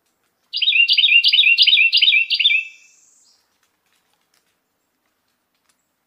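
Carolina wren singing one song: a quick run of about six identical repeated phrases, roughly three a second, starting about half a second in and fading out after about two and a half seconds.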